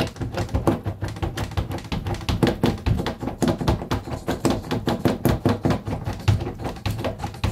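Bathtub click-clack pop-up drain stopper being jabbed down and released in quick succession in standing water, knocking several times a second. The pumping works like a plunger to push a clog down the blocked drain pipe.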